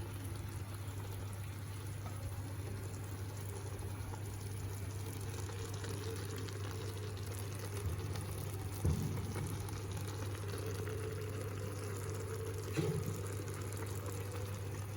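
Pot of chicken rice in water bubbling steadily on the stove, over a constant low hum. There are two light knocks, one about halfway through and one later.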